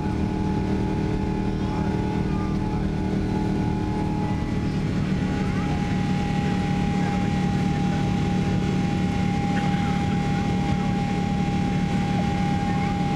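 Steady cabin roar of a Boeing 777-300ER climbing after takeoff, its GE90-115B engines running under a constant rush of air, with a low hum and a steady whine that grows stronger about five seconds in.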